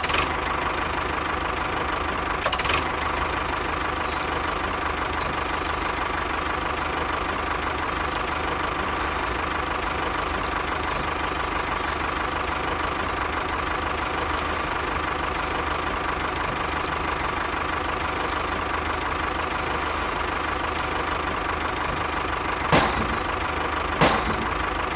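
Steady, unvarying engine drone of a miniature DIY tractor running as it tows a cultivator, with two sharp clicks near the end.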